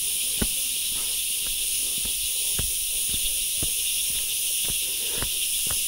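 Footsteps on a dirt trail, about two a second, under a steady high-pitched hiss.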